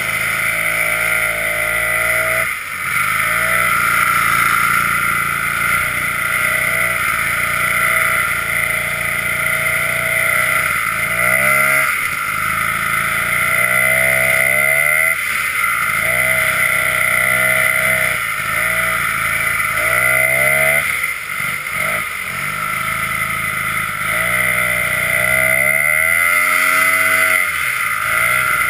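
Vintage snowmobile's two-stroke engine running, heard from on board, its pitch rising and falling several times as the throttle is worked along the trail.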